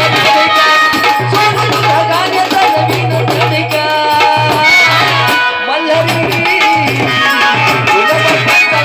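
Indian folk devotional music, played loud and steady: tabla-style hand-drum beats under a wavering melody line.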